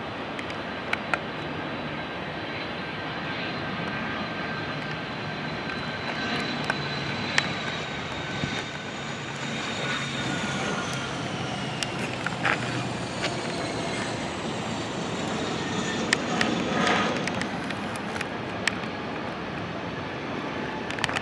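Fixed-wing aircraft engine running as the plane passes by, a steady engine noise with a high whine that falls in pitch from about halfway through as it goes past.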